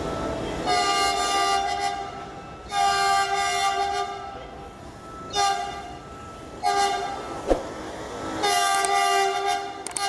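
Train horn sounding in about five blasts of roughly one to one and a half seconds each, all at the same pitch, over the low rumble of a passing train.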